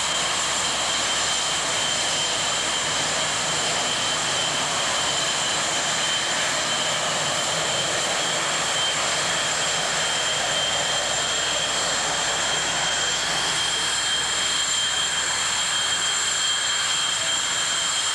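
Jet engine noise from Blue Angels F/A-18 Hornets, a steady wideband roar with a high whine running through it that strengthens slightly in the second half.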